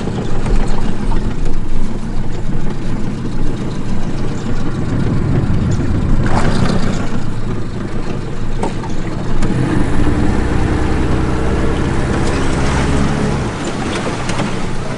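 Boat outboard motor running under way, with wind and water noise. The engine note becomes more distinct about ten seconds in and eases off near the end.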